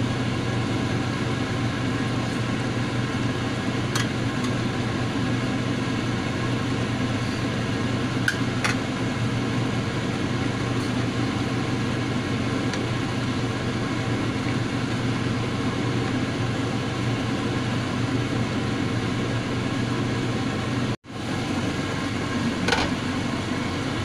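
Steady mechanical hum throughout, with a few light clicks of a spoon and a wooden spatula against a stainless steel pot as a simmering stew is stirred. The sound cuts out for an instant near the end.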